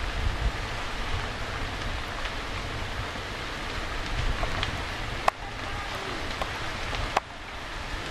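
Burning garage crackling: a steady rushing noise with scattered small pops and a low rumble underneath. Two sharp cracks stand out, about five and seven seconds in.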